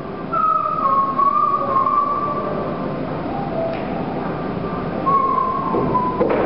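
A person whistling a slow tune in a few long, gently wavering notes, with a sharp knock shortly before the end.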